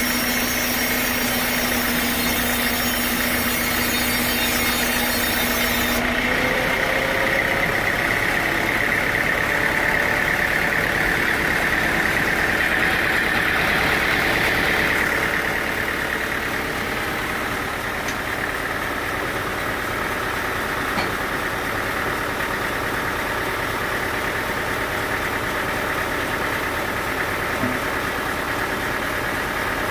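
Sawmill machinery with its engine running steadily, not cutting. A steady hum and a high hiss stop about six seconds in, and the overall sound drops a little about halfway through.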